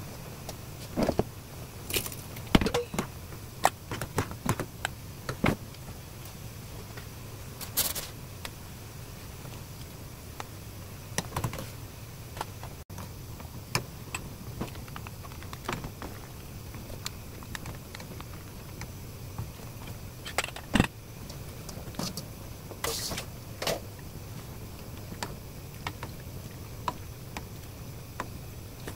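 Cooking utensils clinking and knocking at irregular intervals: a metal mesh strainer and a wooden spoon striking and scraping against the pan as the broth is strained and soybean paste is pressed through the strainer.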